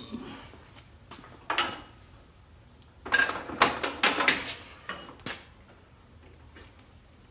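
Metal tools and parts clinking and rattling on a table saw: a short clatter about one and a half seconds in, then a longer run of clanks from about three seconds to just past five.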